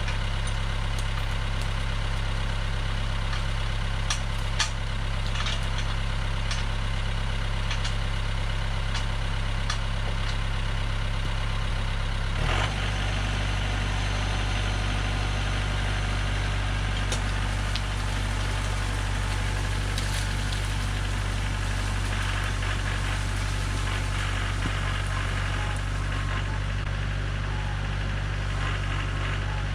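Mahindra tractor's diesel engine running steadily at a low, even note, with a knock and a slight change in its note a little before halfway.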